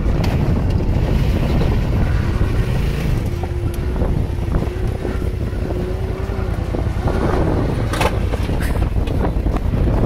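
Side-by-side UTV engine running hard as it climbs a sand hill, with wind buffeting the microphone.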